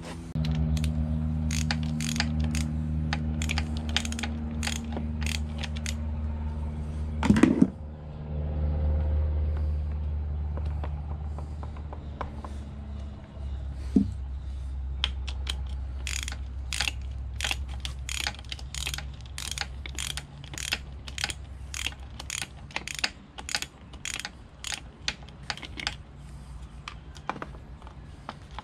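Ratchet clicking in quick runs as a bolt on an outboard's starter motor is backed out, over a steady low hum. There is a louder clank about seven seconds in.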